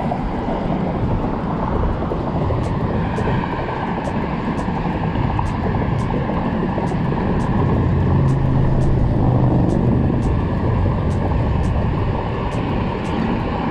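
Steady rush of road traffic on the bridge close by, with faint regular ticks about twice a second over it.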